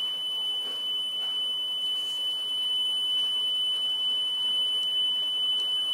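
Steady 3 kHz test tone played back from tape on a TEAC X-10M reel-to-reel deck at 38 cm/s, one unbroken pitch over faint hiss. The tone is held very steady, measuring about 0.013% wow and flutter.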